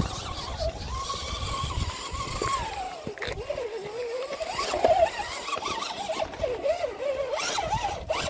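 Tekin 35T brushed motor and drivetrain of a 3D-printed RC rock crawler whining under throttle, the pitch rising, dipping and wavering as the driver feathers the throttle to creep over rock.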